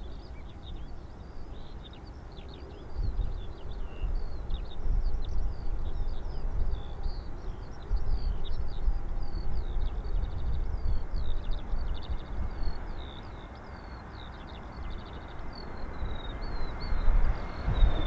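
Gusty wind buffeting the microphone in low rumbling bursts, with small birds chirping and singing continuously. Over the last few seconds the jet engines of an Airbus A320 on short final grow louder as it comes in to land.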